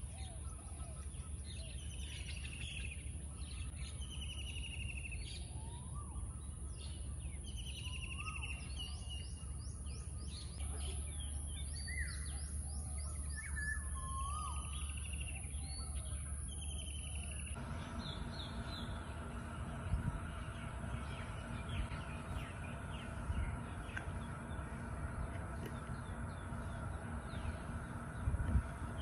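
Many birds calling and chirping, with short chirps repeated in runs over a steady outdoor background. About two-thirds of the way through the background changes suddenly to a steadier faint hum with fainter bird calls, and a few soft knocks come near the end.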